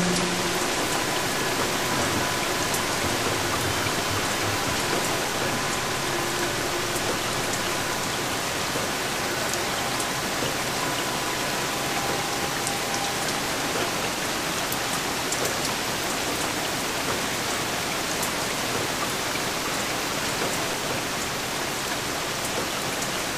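Steady wash of hiss-like noise, like static or heavy rain, in an experimental music track. A few faint held tones fade out within the first dozen seconds, leaving only the noise.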